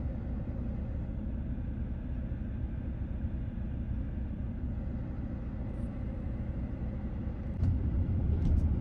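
Steady low rumble of a vehicle driving, with the rumble getting louder about three-quarters of the way through.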